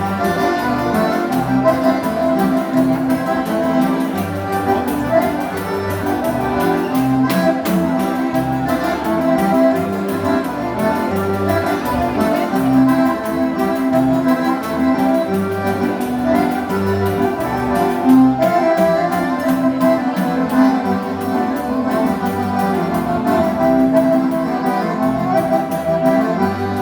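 Instrumental introduction by a gaúcho dance band, led by accordion (gaita), with a steady alternating bass line and no singing.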